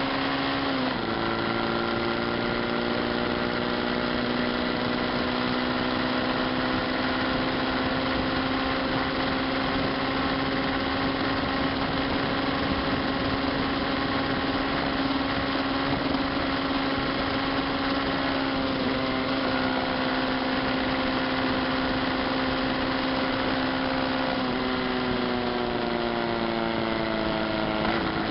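Yamaha Fazer 250 single-cylinder motorcycle engine running at road speed under wind and road noise. Its note steps down about a second in as the rider shifts up, holds steady while the bike speeds up, then falls gradually as the bike slows, jumping back up at the very end with a downshift.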